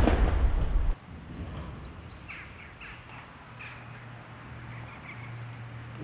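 The echo of an artillery gun's shot dying away, cut off abruptly about a second in. Then faint outdoor ambience with several short bird calls and a low steady hum.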